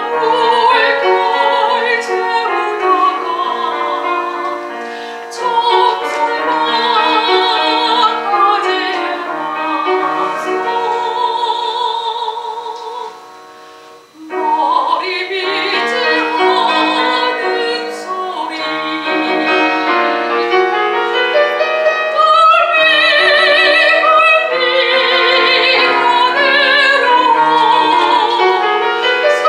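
A soprano singing a Korean art song in operatic style with piano accompaniment, her held notes shaking with a wide vibrato. The music thins out briefly about halfway through, then the voice comes back in over the piano.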